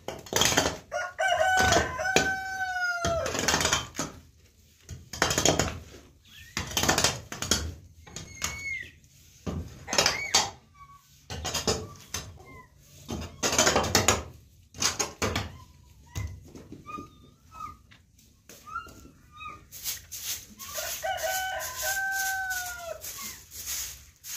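A hoe scraping over a packed-earth floor in repeated strokes, roughly one a second. A rooster crows twice, once near the start and again near the end, and hens cluck in between.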